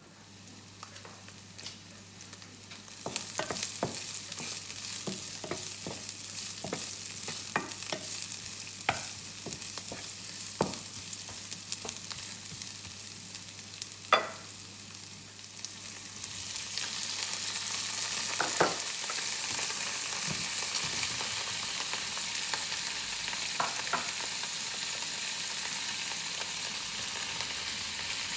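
Chopped onion frying in hot olive oil in a frying pan, a steady sizzle that builds a few seconds in and gets louder past the middle as more vegetables go in, with scattered clicks and taps of stirring.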